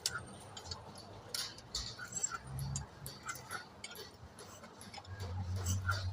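Metal tools and engine parts clinking and tapping in irregular short clicks during hand work on an engine rebuild, with a low hum coming in near the end.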